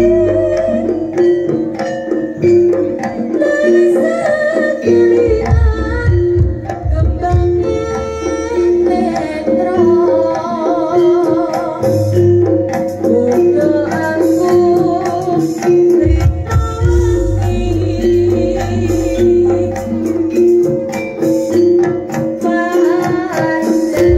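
Live jaranan music: an East Javanese ensemble with hand drums beating over a repeating pitched note pattern and a wavering high melody line. Deep low booms come in several times.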